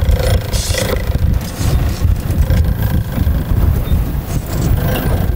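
Wind buffeting the microphone aboard a fishing boat at sea: a loud, gusting low rumble.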